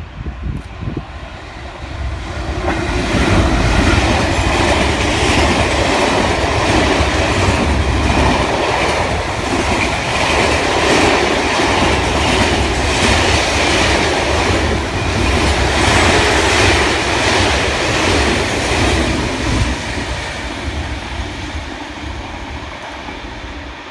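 GB Railfreight Class 66 diesel-electric locomotive, with its EMD two-stroke V12 engine, speeding past, followed by a long train of loaded coal wagons rolling by with a steady clickety-clack of wheels on the track. The noise builds over the first few seconds, stays loud while the wagons pass, and fades away near the end.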